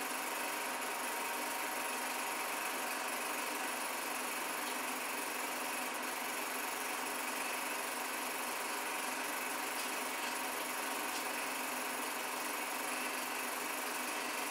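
A small motor running with a steady, unchanging whir and no rise or fall in level.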